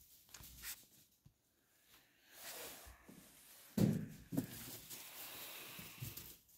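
Quiet footsteps and small knocks, with a louder short thump about four seconds in.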